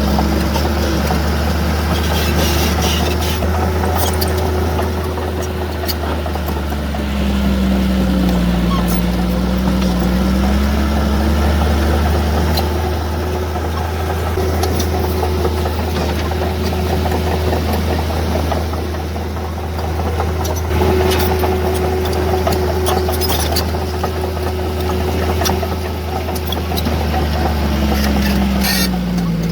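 Heavy diesel earthmoving machine engine running steadily. Its pitch dips and recovers about a third of the way in, then drops again near the end.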